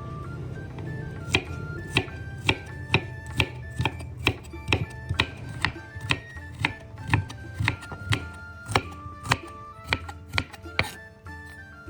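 Knife chopping on a cutting board, about two even strokes a second, starting about a second and a half in and stopping shortly before the end, over background music.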